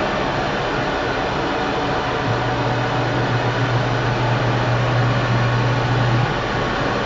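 Sharp ES-KS70K-P top-loading washing machine running, with a steady churning noise throughout. A low motor hum comes in a little over two seconds in and cuts off about four seconds later.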